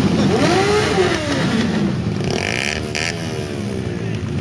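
Several vintage racing motorcycle engines running together, blipped so that their revs rise and fall over one another.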